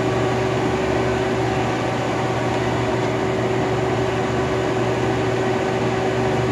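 Robinair AC recovery, vacuum and recharge machine running with a steady, even hum that holds a constant pitch.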